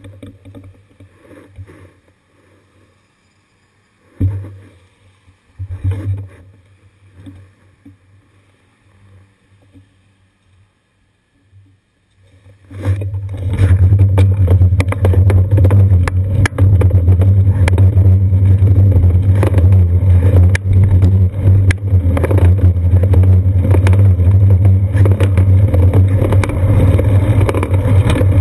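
Bicycle-mounted action camera picking up loud, steady wind and road rumble once the bike gets moving, from about halfway in. Before that it is quiet, with a couple of faint swells from passing cars.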